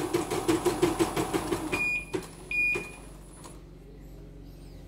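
CNY portable embroidery machine stitching fast with a rapid, even needle rhythm, on a test run after its motor and power supply were replaced. It stops about two seconds in with two short high beeps, leaving only a low hum.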